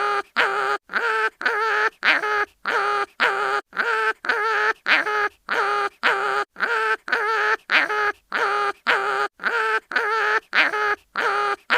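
Cartoon animal crying-in-pain sound effect, a short pitched whimpering cry repeated in a quick, even loop, about three cries a second.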